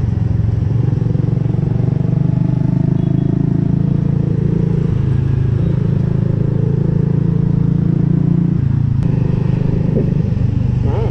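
Motorcycle engine running steadily while riding, its note changing a couple of times with the throttle.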